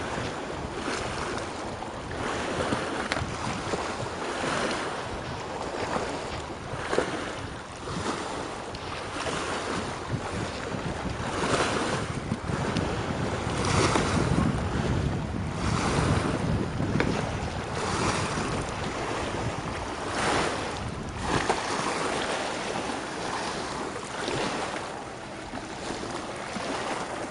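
Small lake waves lapping and washing against the shore in repeated surges, with wind buffeting the microphone.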